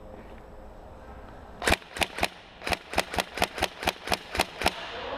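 Airsoft electric rifle (AEG) firing about a dozen quick, sharp shots over about three seconds, starting nearly two seconds in, unevenly spaced like rapid single shots.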